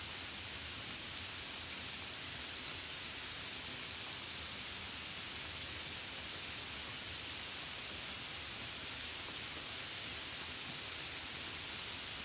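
Steady, even hiss of rain and wet snow falling, with no separate drops or knocks standing out.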